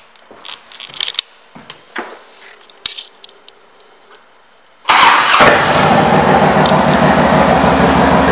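A few faint clicks, then the 2005 Harley-Davidson Ultra Classic's Twin Cam 88 V-twin starts about five seconds in and runs steadily through Vance & Hines aftermarket pipes, loud.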